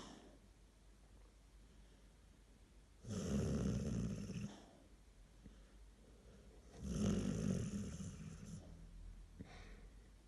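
Sleeper snoring: two long, rattling snores a few seconds apart, with a softer breath near the end.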